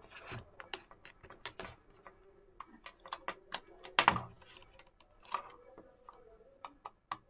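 Irregular small plastic clicks and rattles of USB plugs and cables being handled and pushed into an adapter, with one louder clack about four seconds in.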